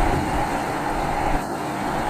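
Steady road and engine noise heard inside a moving car.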